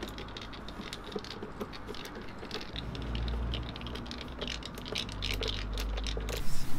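Hand screwdriver turning a screw to fasten a power inverter to a wooden wall panel: a run of small, irregular clicks and scrapes.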